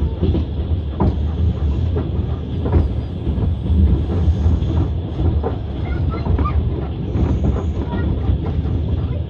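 Passenger train running at speed, heard from inside the carriage: a steady low rumble of the wheels with irregular knocks over the rail joints and small faint squeaks.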